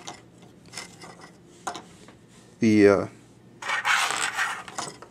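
Small parts from a disassembled CD player being handled: a few light clicks, then about a second of rubbing and scraping near the end.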